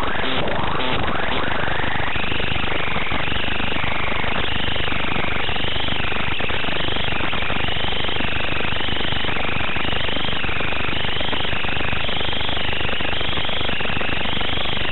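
Wizard X220S racing quadcopter's brushless motors heard through the analogue FPV video feed's audio: a loud, harsh buzzing hiss with a whine that rises and falls as the throttle changes.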